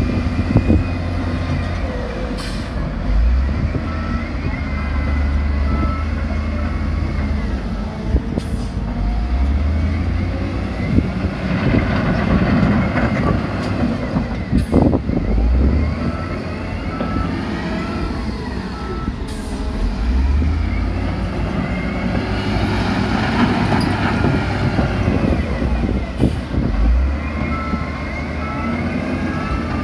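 Heavy diesel engines of dump trucks and a wheel loader running and revving under work, the pitch rising and falling. A reversing alarm beeps in short runs three times.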